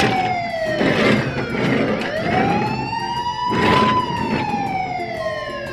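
Police-car siren wailing in a slow rise and fall: the pitch drops, climbs again about two seconds in, then drops once more, with a few brief noisy bursts over it.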